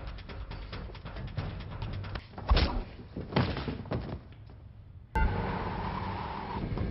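Film fight-scene sound effects: a rapid run of punches, thuds and scuffles, the loudest hits about two and a half and three and a half seconds in. About five seconds in it switches abruptly to a steady rumbling background with a faint hum.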